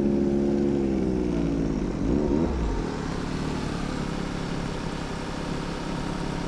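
Ski-Doo Mach Z's 900 ACE Turbo R engine easing off, its pitch falling over the first two seconds, with a short blip of the throttle about two seconds in. After that the engine settles into steady low running, with a running snow groomer close by.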